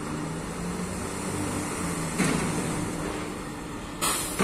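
Steady mechanical hum of a shore gantry crane and a terminal tractor in a container terminal. One sharp clank comes about halfway through, and a sudden burst of noise comes near the end.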